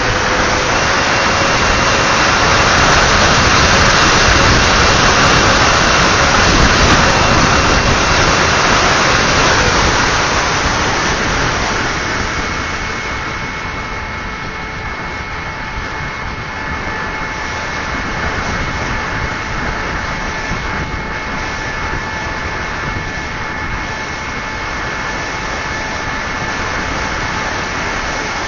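Multiplex Twister RC plane in flight: steady rushing air noise with a thin motor-and-propeller whine. It is louder for the first ten seconds or so, then eases, and the whine shifts pitch.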